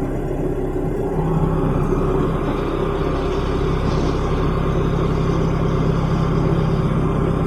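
JCB 1CXT tracked compact backhoe loader's diesel engine running steadily, its note filling out a little about a second in.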